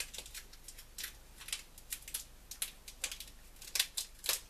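Oven-roasted chestnuts being peeled by hand: the slit, brittle shells crack and snap off in quick, irregular sharp clicks.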